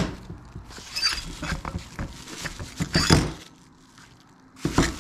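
Handling noises on a plywood workbench: a sharp knock as the old mower deck spindle is set down, bubble wrap crinkling in two spells as the new spindle is pulled out of it, and another knock near the end.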